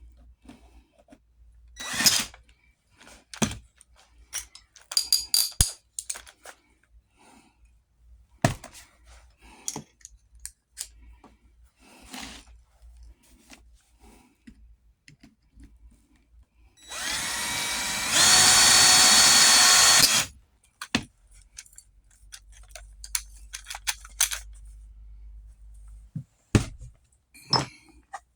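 Scattered clicks and knocks of hand work, then a small power tool, such as a drill, runs for about three seconds, stepping up to a higher, louder speed after a second before it stops abruptly.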